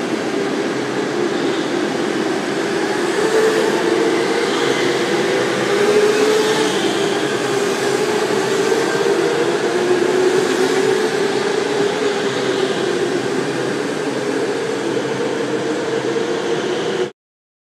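Go-karts lapping an indoor track: a steady running drone with a wavering hum. It cuts off suddenly near the end.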